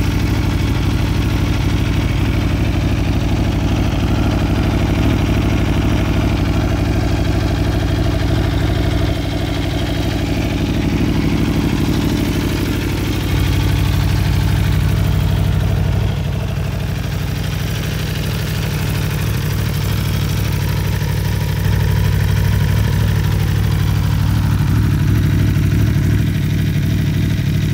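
2016 Aprilia Tuono V4 1100 Factory's V4 engine idling steadily, its loudness dipping and rising a few times.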